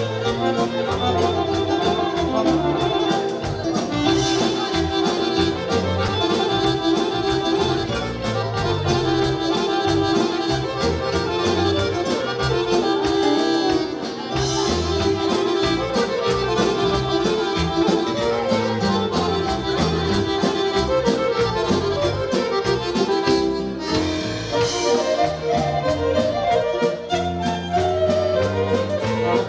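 Live band playing an instrumental folk dance tune, led by a Guerrini piano accordion, with violin, keyboard, bass guitar and a drum kit keeping a steady quick beat.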